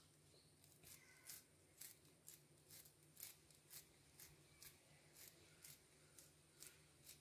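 Fingers patting a ball of mashed ripe-plantain dough flat on the palm: faint, soft pats about twice a second.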